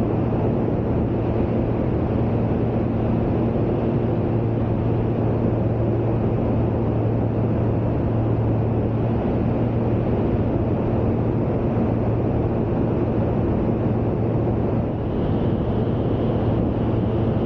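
Steady drone of a light single-engine piston aircraft's engine and propeller in cruise, mixed with airflow noise. The level dips slightly for a moment near the end.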